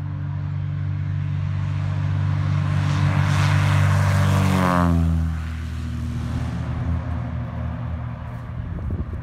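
Single-engine propeller airplane taking off and passing close by at full power. Its engine and propeller tone swells to a peak, then drops sharply in pitch as it goes past, about five seconds in, and fades as it climbs away.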